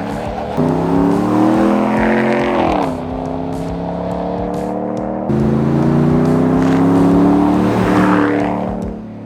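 2021 Ram 1500 pickup with a freshly fitted dual 3-inch aftermarket exhaust accelerating away, the engine note climbing in pitch, dropping about three seconds in as it shifts up, then getting louder and climbing again before easing off near the end.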